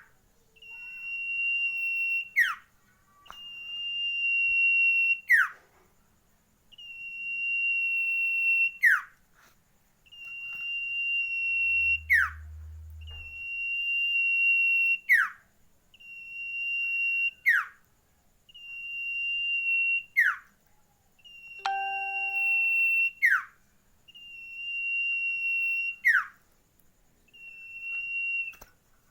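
Common iora (sirtu/cipow) singing: a long, steady, high whistle held about two seconds and ended by a quick downward-sliding note, repeated over and over about every two and a half seconds.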